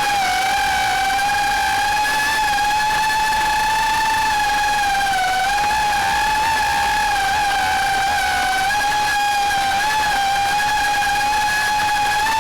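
Quadcopter drone's motors and propellers running in flight, a steady high whine with its pitch wavering slightly as the rotor speed shifts.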